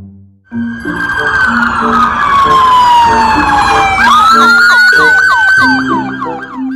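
Siren sounding: one long wail falling steadily in pitch, then about four seconds in a quick rise into a fast warble of short repeated chirps that stops near the end. A light rhythmic music track plays beneath.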